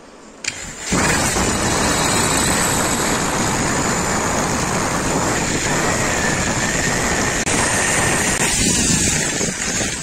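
Handheld electric drill with a spade bit boring a hole through a laminated wardrobe door panel. The motor starts about half a second in and runs loud and steady under load for about nine seconds, with one short break about seven seconds in, then stops.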